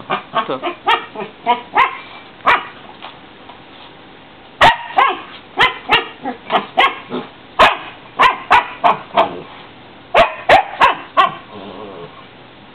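Husky puppy barking and yipping at his upturned water bowl, in short sharp calls that come in several quick clusters with brief pauses between them.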